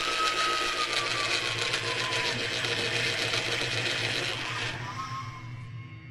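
Crackling, fizzing sound effect with a faint whistle that slides slowly down in pitch, matching a spark trail drawing on-screen text. It cuts off about four and a half seconds in, leaving a low hum.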